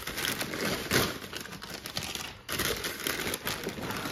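White packing paper crinkling and rustling as a hand digs through it inside a cardboard shipping box, in two spells with a short break about two and a half seconds in.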